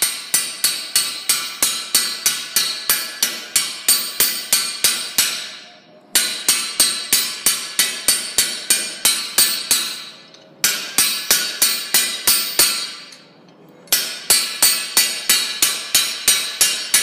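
Hand hammer striking a spring fullering tool over a hot steel pipe on an anvil, fast and steady at about three to four blows a second, each blow ringing; the hammering stops briefly three times as the pipe is turned. The blows are necking the pipe down to form a bamboo node.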